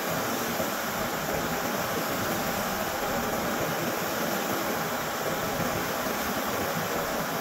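Steady hiss of a gravity-feed paint spray gun's compressed air as it sprays paint onto a car door panel.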